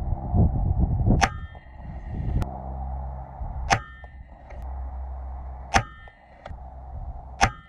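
An air rifle shooting slugs, four shots about two seconds apart, each with a brief ringing after the crack and a fainter click a moment later. A low rumble fills the first second.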